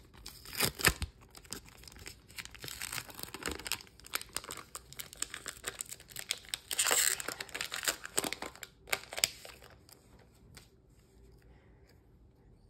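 Foil wrapper of a Pokémon booster pack crinkling and tearing as it is ripped open, loudest about seven seconds in.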